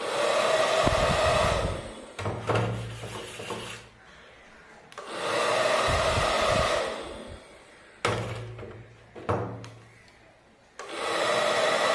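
A battery-powered bubble gun's fan motor whirring in three bursts of about two seconds each as it blows out bubbles. Between the bursts come a few sharp plastic knocks as the gun is dipped into the metal bowl of bubble solution.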